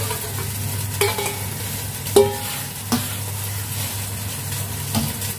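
Broccoli florets blanching in a stainless wok of boiling water: a steady bubbling noise. A metal utensil stirring knocks against the wok several times, and the loudest, ringing clink comes about two seconds in.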